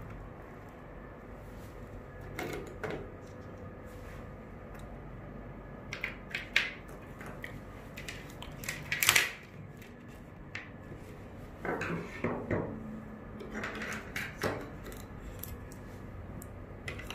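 Scattered light clicks and clatters of small hard objects being handled, in short clusters, the loudest about nine seconds in, over a faint steady hum.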